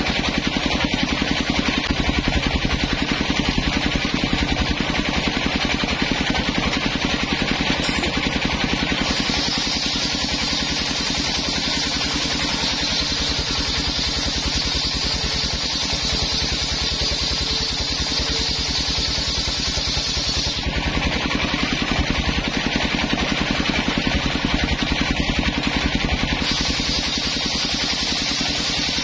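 Engine-driven homemade circular table saw running steadily while its blade rips coconut-wood planks. The engine's fast even pulse runs throughout. Over it a higher cutting hiss drops out briefly about eight seconds in and again for several seconds from about twenty seconds in, as one board clears the blade and the next is fed in.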